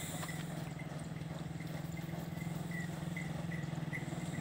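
Motorcycle engine running steadily at low speed, growing slightly louder as it approaches.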